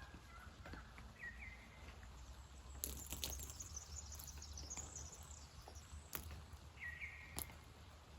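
Faint morning outdoor ambience: a steady low rumble under a bird chirping twice, a short call about a second in and the same call again near the end, with a higher wavering call in between.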